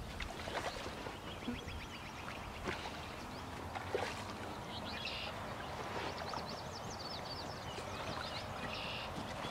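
Birds singing: a short high phrase repeats a few times, with runs of quick high notes between, over a steady outdoor background hiss.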